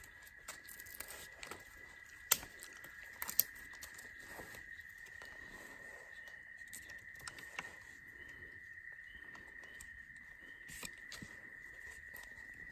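Sharp clicks and scrapes of a knife whittling a small wooden wedge stick, over a steady high-pitched drone of night insects such as crickets.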